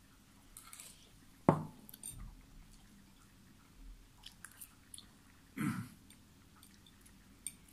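People eating pasta: soft chewing and a few light fork clicks on a plate, with a sharp thump about a second and a half in and a louder short mouth or handling sound a little after five seconds.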